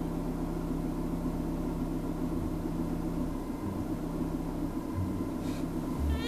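Car engine idling steadily, a low, even hum.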